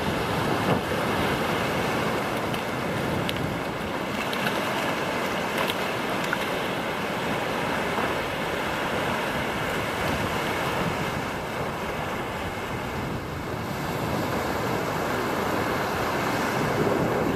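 Surf washing in, a steady rushing noise, with wind on the microphone.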